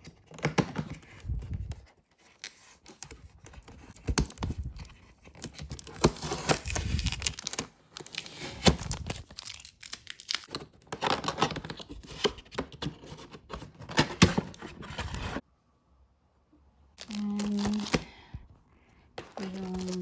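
Product packaging being torn open and handled, with irregular ripping and crinkling for about fifteen seconds before it stops.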